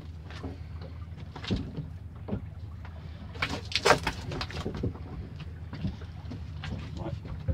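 Scattered knocks and scuffs as a large conger eel is gaffed and handled on a boat's deck, with a louder clattering burst about four seconds in, over a steady low hum.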